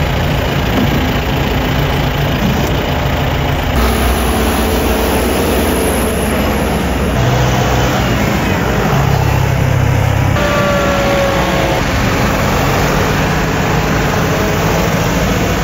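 Diesel tractors, Kubota L6060s and John Deeres, running as they drive past one after another. The engine sound changes abruptly a few times, and a brief falling whine comes about ten seconds in.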